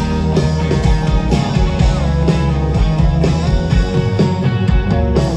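Live rock band playing an instrumental passage: electric guitar over bass and drums, with a steady beat.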